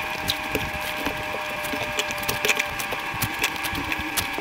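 Close-miked chewing of pani puri: the crisp puri shells crackle and crunch with many small sharp clicks, over a steady background hum.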